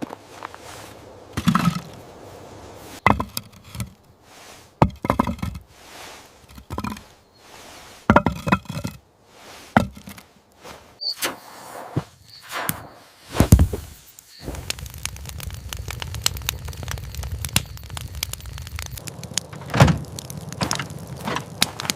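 A series of separate knocks, thunks and cracks. About two-thirds of the way through, a steady low rumble sets in beneath them.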